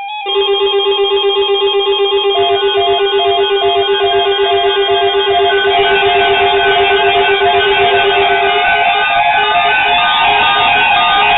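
Weather alert radios sounding their alarms together: a layered chord of steady and rapidly pulsing electronic beeps. A low steady tone drops out about eight and a half seconds in, while the pulsing beeps go on.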